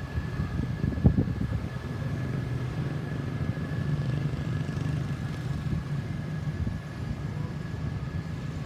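Motor vehicle engine running with a steady low rumble, with a few thumps, the loudest about a second in, and a faint steady high tone above it. No siren is sounding.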